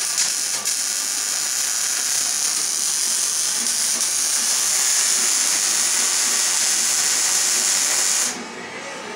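Electric welding arc crackling and hissing steadily, then cutting off suddenly about eight seconds in as the arc is broken.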